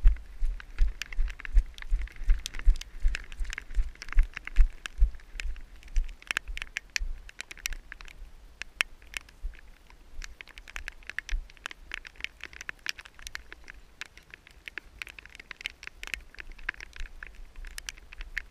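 The camera wearer's footsteps on wet ground, heard as dull thuds about two to three a second, strong at first and lighter after about six seconds. Under them runs a steady crackling and ticking of rain on the camera.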